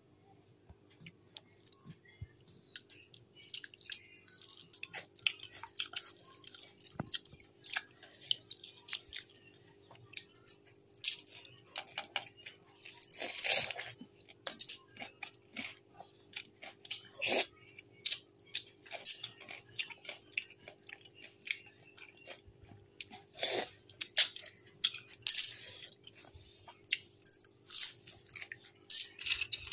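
Close-up eating sounds: irregular chewing and crunching of a meal of pakhala (water-soaked rice) with crisp fried prawns and papad, with a few louder crunches along the way.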